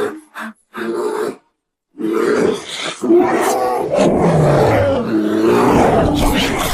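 Giant panda calls: two short calls, half a second of silence about a second and a half in, then a long run of overlapping calls whose pitch slides up and down.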